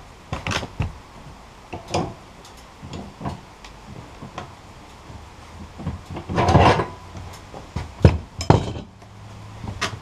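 Metal clanks and knocks of the steel sawmill bed's log clamps and handling tools, with footsteps on the wooden deck, as a log is turned and repositioned on the bed between cuts. There is a longer scraping rattle about six seconds in and two sharp hits a couple of seconds later.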